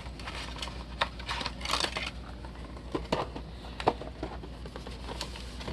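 Trading-card box and foil packs being handled: scattered clicks, taps and short rustles, with the sharpest tick about four seconds in.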